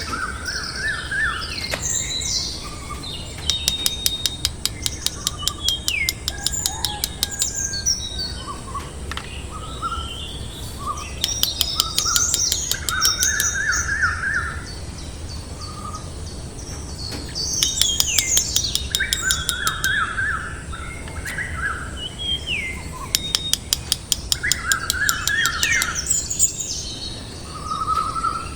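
Songbirds chirping and singing in short, repeated trills and whistled phrases. Several times, a few-second run of rapid clicking comes in alongside them.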